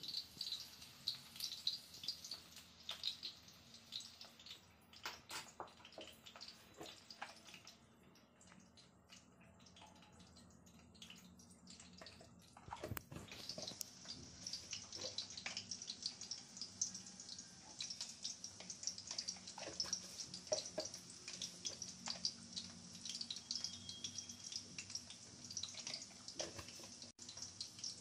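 Spoon clinking and scraping against a small bowl, with scattered light taps, as curd and ground spices are spooned in. A steady background hiss grows louder about halfway through.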